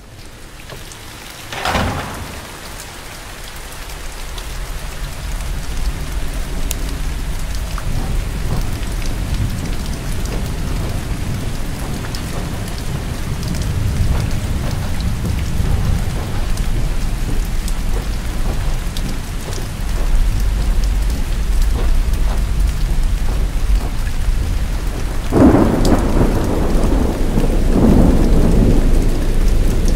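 Heavy rain falling steadily on paving with thunder rumbling underneath; the rain swells in over the first few seconds after a sudden crash. Two loud thunderclaps break near the end, a couple of seconds apart.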